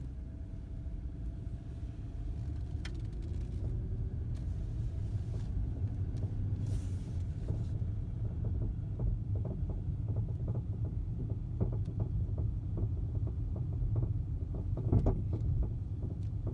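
2012 Dodge Charger police car driving, heard from inside the cabin: a steady low road and engine rumble, with a run of short sharp knocks from the front suspension in the second half. The driver takes the knocking for a worn bushing or tie rod on the right side.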